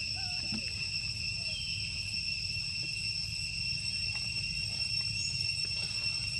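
A steady, high-pitched insect drone of crickets or cicadas, holding a constant pitch, over a low steady rumble. A few faint short chirps come in the first second.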